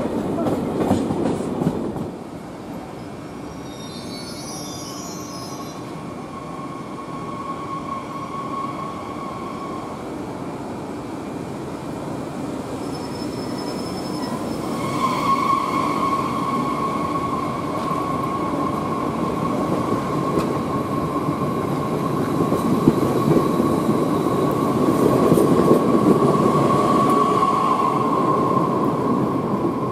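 Passenger trains moving through stations with a steady rumble, the level dropping suddenly about two seconds in. A steady high tone comes in briefly, then holds through the second half as the rumble grows louder.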